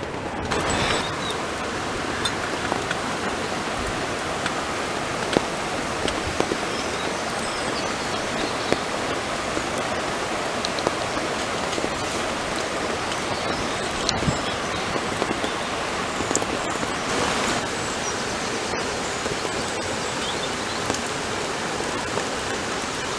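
Heavy rain falling steadily on a canvas tent, a constant hiss with scattered sharper drop hits.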